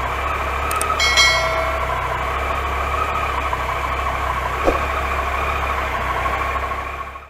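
Triumph Tiger XC motorcycle's three-cylinder engine idling steadily, with a short bright chime about a second in.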